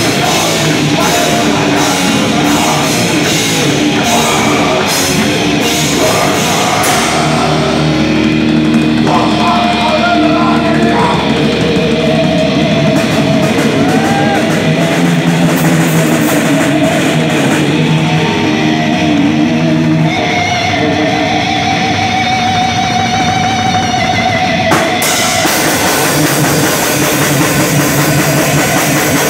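Live heavy metal band playing loud: distorted electric guitars and a drum kit, with a singer's vocals over them.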